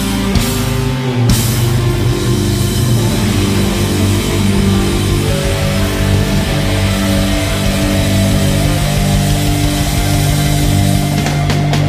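Loud heavy rock music with distorted electric guitar and drums.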